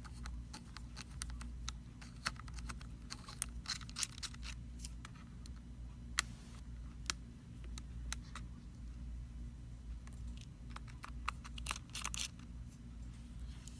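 Scattered small clicks and light scrapes of a precision Phillips screwdriver and tiny screws being worked out of a phone's plastic back frame, over a steady low hum.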